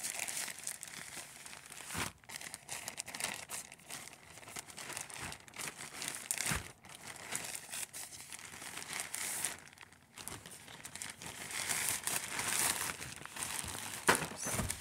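Plastic parcel bag and wrapping crinkling and rustling as it is handled and opened, with a sharp click near the end.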